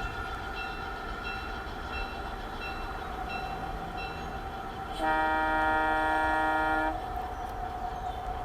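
G-scale model locomotive's sound system sounding one long horn blast, about two seconds, starting about five seconds in.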